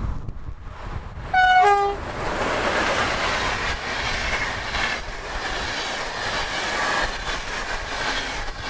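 Bombardier Traxx 3 electric locomotive sounding a short two-note horn about a second and a half in, a higher note then a lower one. Then comes the steady rolling noise of the passenger coaches' wheels on the rails as the train passes.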